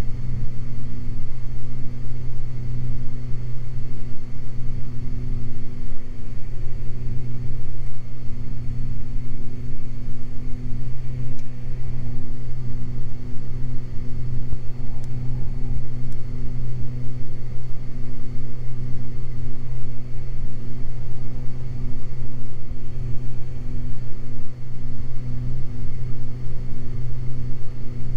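Steady drone of a Beechcraft G58 Baron's twin six-cylinder Continental IO-550 engines and propellers on final approach, slowed to full-flap speed.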